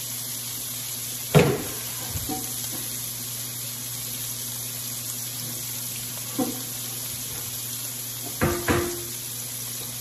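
Bacon, onion and garlic sizzling steadily in a cast-iron skillet, over a low steady hum. A few short knocks and clatters come through it: one about a second and a half in, one past the middle, and two close together near the end.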